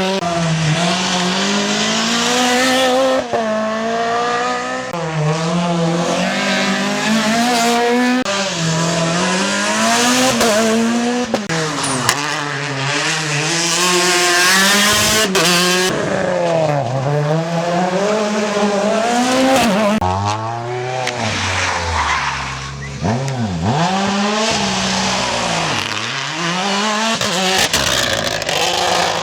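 Rally car engines at racing pace, the revs climbing and dropping again and again through gear changes and lifts for the corners.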